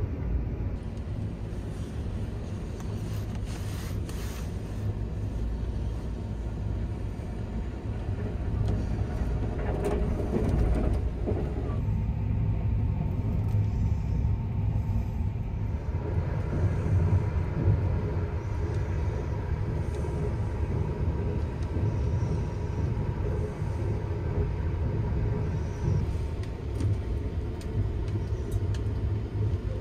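Steady low rumble of the Sunrise Express sleeper train running, heard from inside a compartment. A faint steady hum joins in about halfway through.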